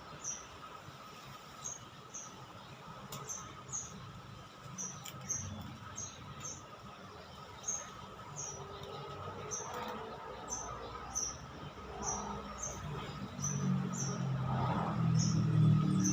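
Repeated short, high chirps, often in pairs, about one or two a second, over a faint steady high hum. A low sound grows louder over the last few seconds.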